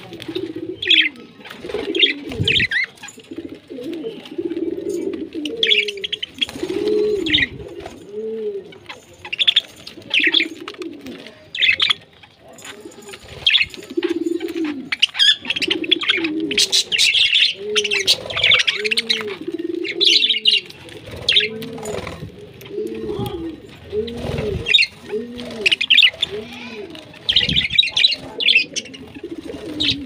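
A dove cooing over and over, each coo rising and falling, more regularly in the second half. Budgerigars chirp in short high bursts over the coos.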